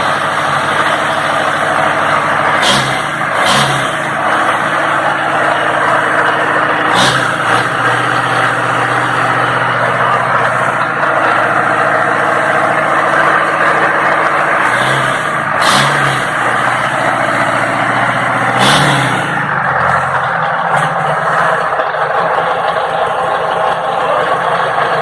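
Freshly overhauled MWM D229 diesel engine of a backhoe loader idling steadily, with several brief throttle blips now and then: two close together about three seconds in, one around seven seconds, a pair around fifteen to sixteen seconds and one near nineteen seconds.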